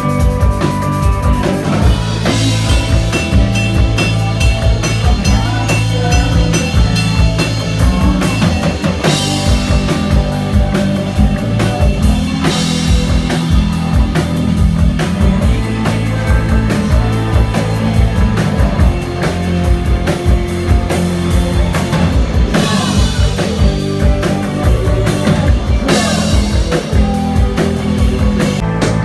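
Rock band playing, a drum kit driving the beat with electric guitar and keyboard, and several cymbal crashes along the way.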